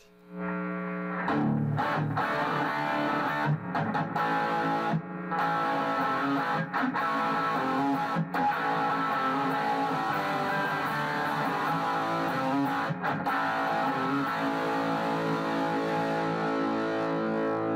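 Electric guitar with P-90 pickups played through a Marshall Vintage Modern 2466 100-watt valve head with KT66 power valves, on its white channel in high dynamic range mode, into a Celestion Greenback cabinet. Chords and riffs ring out, with several short breaks between phrases.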